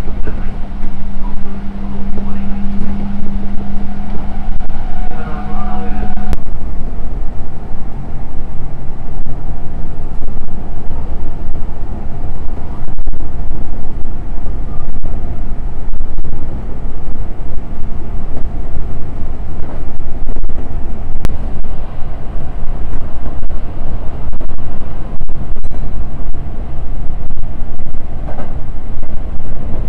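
Train running at speed, heard from inside the carriage: a steady low rumble of wheels on the rails, with a steady hum during the first few seconds.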